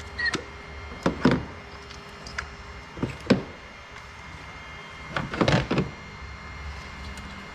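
Plastic electrical connectors being pressed and pulled off the ignition coils of a Toyota 2.5-litre four-cylinder: short sharp clicks and knocks in a few separate clusters.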